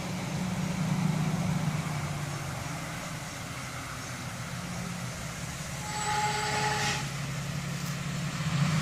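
Dump truck engine running steadily as the truck approaches along the street, with a brief high squeal and hiss about six seconds in.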